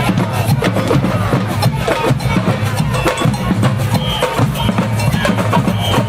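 Samba band drumming: bass drums, snares and wood-block percussion playing a dense, steady rhythm.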